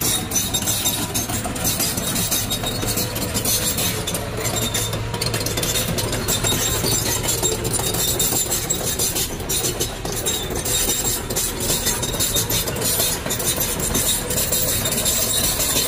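Kobelco SK200 crawler excavator's diesel engine running steadily as the machine travels on its steel tracks, with the clank and clatter of the track chains.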